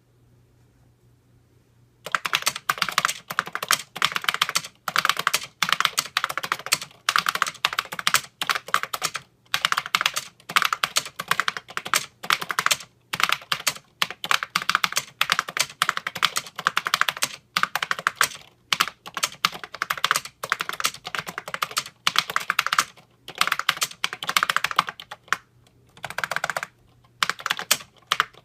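Typing on a 1978 Harris Digitran Z-leaf keyboard, with linear capacitive copper-leaf key switches and the solenoid switched off, so only the keystrokes are heard. It starts about two seconds in, as quick runs of key clicks broken by short pauses.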